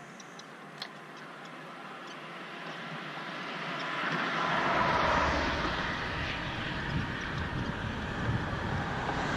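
Road traffic passing close by on a bridge: car tyre and engine noise swells gradually over the first five seconds as a vehicle approaches, then stays loud as more cars come on.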